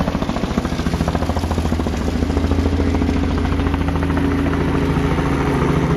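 Small boat's outboard motor running steadily at low speed, a low even drone with a fast regular throb.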